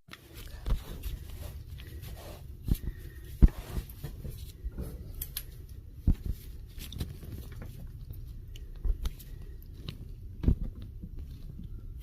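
Irregular knocks and clicks from hands handling water pipe and fittings during the repair, a few of them louder than the rest.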